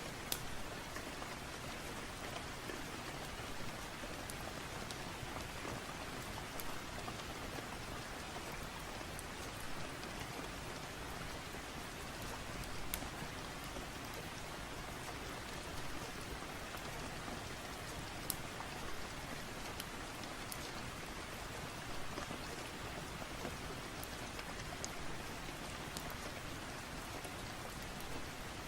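Steady rain falling as an even hiss, with a few scattered sharp crackles from a wood fire.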